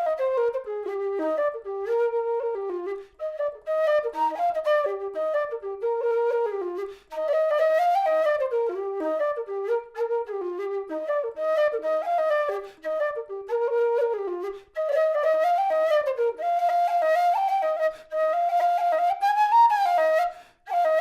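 Nightingale low whistle playing a quick melody of many short notes, moving up and down through the low and second octaves, with brief gaps for breath every few seconds.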